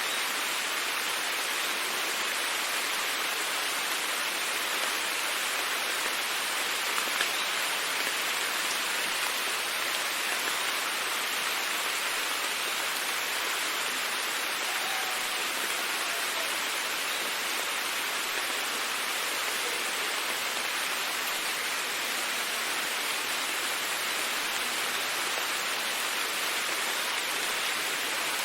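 Steady rainfall, a dense even hiss of drops with a few individual drop ticks, and no thunder.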